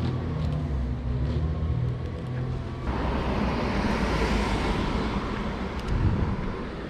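A car passing along the street: its road noise comes in about three seconds in, swells and then fades away. Before it, a low steady hum.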